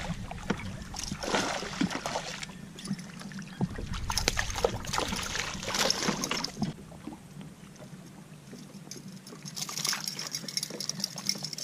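Water splashing and sloshing in three bursts of a second or two each, over a low steady hum.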